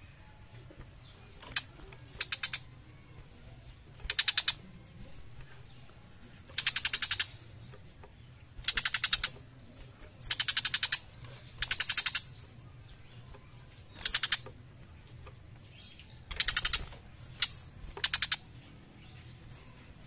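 Young tiger shrike giving harsh rattling chatter calls: about ten separate bursts of very rapid, high clicking notes, each about half a second long, a second or two apart.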